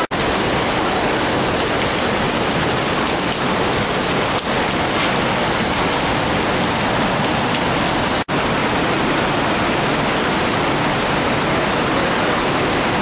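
Swollen river rushing over rocks in white-water rapids: a loud, steady rush of water. It cuts out for an instant twice, once at the very start and once about eight seconds in.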